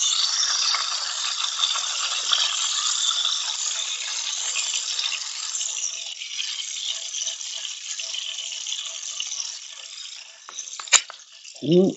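Bacon and hamburger grease sizzling in a frying pan on a gas camp stove, the sizzle slowly dying down once the burger patty is lifted out. A single sharp clink about eleven seconds in, then a brief voice sound at the very end.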